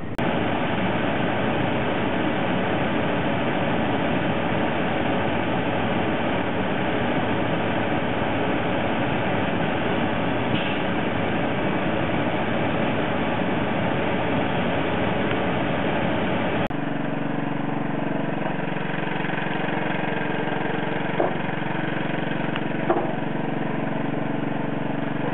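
Concrete truck's diesel engine running steadily at the pour. About two-thirds of the way in, the sound changes abruptly to a smoother, lower engine hum, with a couple of small knocks near the end.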